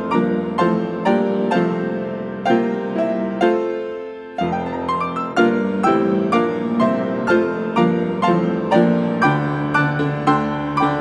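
Solo piano playing a gentle prelude, a steady flow of notes that ring on and fade, with a fuller bass coming in near the end.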